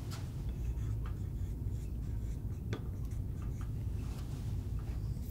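Marker writing on a glass lightboard: a few faint, short squeaks and taps of the pen tip, the clearest about two and a half seconds in, over a low steady hum.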